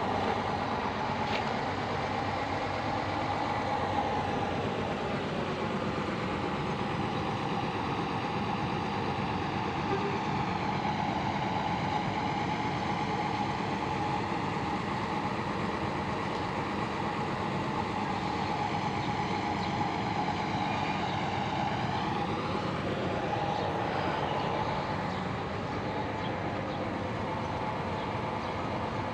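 Large bus engine running steadily at the depot; its pitch sinks slowly through the middle and climbs back up near the end.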